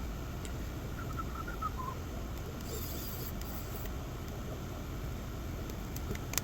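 Dog whining: a run of short, high squeaky whimpers stepping down in pitch about a second in, over a steady low background hum. A brief hiss follows, and a sharp click comes near the end.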